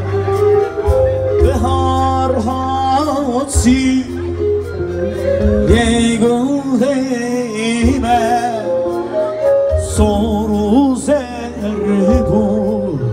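Live Kurdish dance music amplified through PA speakers: a male singer on a microphone over keyboard accompaniment, with a steady, heavy bass.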